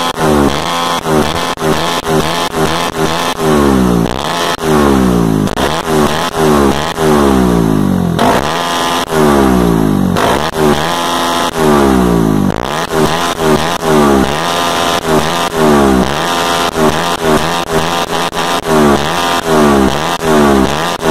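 Motorcycle engine revved again and again, its pitch rising and falling back about every second or two, with the exhaust popping and crackling throughout: backfiring that throws flames from the silencer.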